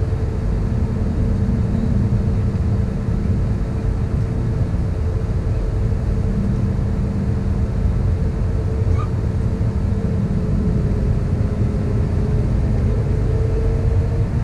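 Airbus A320neo's CFM LEAP-1A turbofan engines running at ground idle, heard inside the cabin as a steady low rumble with a faint constant hum.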